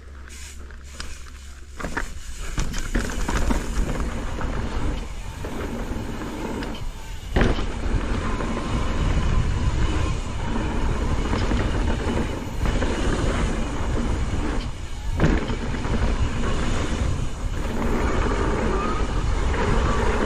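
Downhill mountain bike descending a dirt trail: wind buffeting the action camera's microphone and tyres running over the ground, louder from about two seconds in, with a few sharp knocks from hits on the trail.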